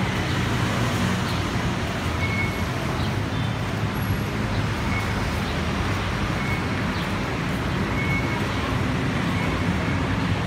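Steady din of busy road traffic.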